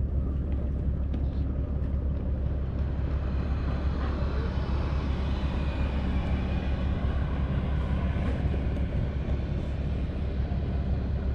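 A steady, low engine drone with no breaks, with a fainter higher hum that swells and fades in the middle.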